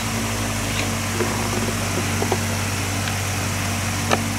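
A steady low machine hum, with scattered light metal clicks and one sharper clink about four seconds in, as a T-handle socket wrench turns a bolt in a motorbike's plastic under-seat compartment.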